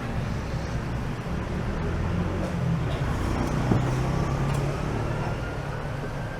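Street traffic: a motor vehicle's engine running close by with a steady low rumble that swells in the middle. A faint rising whine comes in about four seconds in, with a few light clicks.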